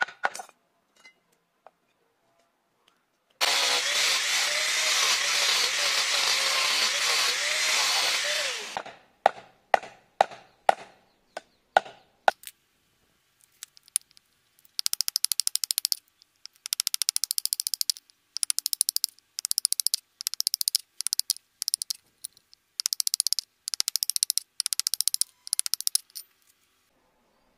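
A loud steady rushing noise for about five seconds, then a large knife striking wood on a wooden block in single sharp chops. These are followed by runs of rapid scraping strokes as the blade shaves thin strips off a small piece of wood.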